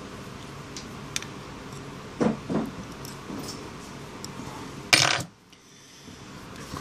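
Small metallic clicks and taps of tweezers and fingers against a phone's freshly soldered metal SIM card slot, over a steady hiss. About five seconds in comes one louder, sharper clatter, and then the hiss drops away.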